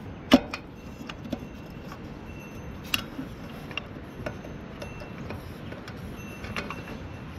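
Metal parts of a tiller's oil-bath air filter being handled and taken apart: scattered clinks and knocks, some ringing briefly. A sharp knock about a third of a second in is the loudest.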